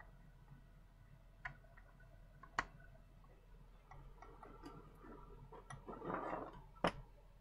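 Cables being handled and plugged into a game console: faint scattered clicks and taps, a sharper click about two and a half seconds in, a short rustle around six seconds and a sharp click soon after.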